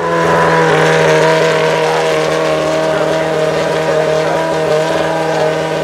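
Red Bull RB8 Formula 1 car's 2.4-litre Renault RS27 V8 running while the car is stationary, holding a steady engine note with no change in revs.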